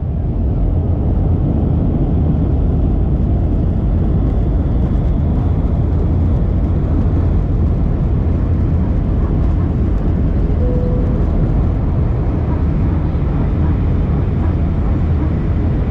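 Steady airliner cabin drone of jet engines and airflow, with a brief faint tone about eleven seconds in.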